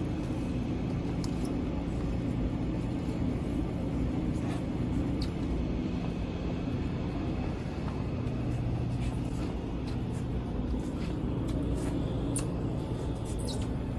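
A steady low mechanical hum and rumble, like an engine or machinery running, holding even throughout, with a few faint clicks over it.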